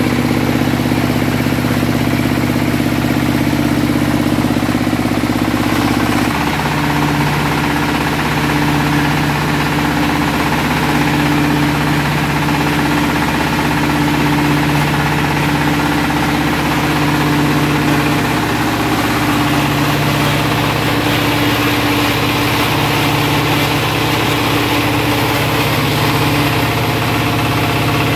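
A Nishikawa diesel engine running steadily, driving a rice milling machine as paddy is milled; the machine's note shifts slightly about six seconds in.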